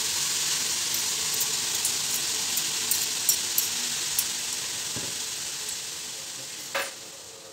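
Green beans and grated carrot sizzling in oil in a metal frying pan as a spatula stirs them, with scattered small crackles. The sizzle dies down toward the end, with one short knock about seven seconds in.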